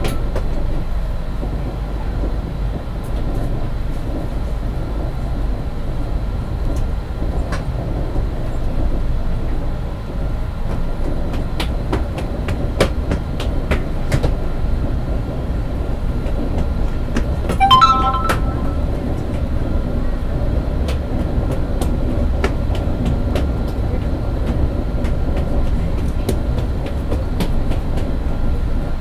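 A double-decker express train running on the rails, a steady low rumble with scattered clicks of the wheels over rail joints. About eighteen seconds in, a short high tone sounds once.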